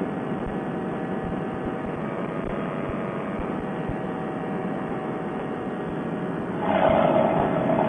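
Paramotor's Fresh Breeze Monster two-stroke engine and propeller running steadily in cruising flight, a constant drone with a hum. It gets louder near the end, with a stronger mid-pitched tone.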